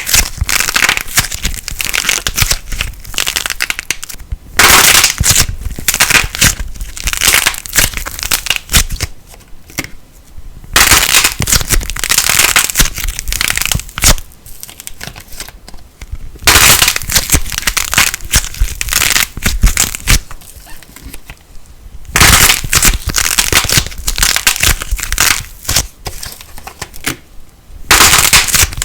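Light plasticine being squeezed and pressed by hand, crackling and popping in dense bursts of a few seconds with quieter pauses between them.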